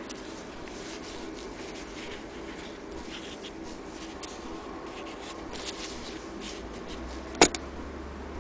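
Denim fabric rustling and rubbing as it is handled and slid under the presser foot of an antique hand-crank Singer sewing machine, with one sharp click a little after seven seconds in.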